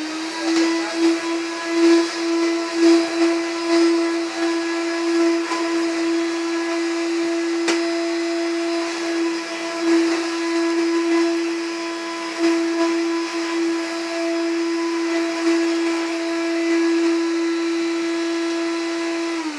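Hoover Turbopower 2 vacuum cleaner motor running with a steady high whine, then switched off near the end, its pitch falling as it winds down. The owner thinks it is a bit noisier than it should be.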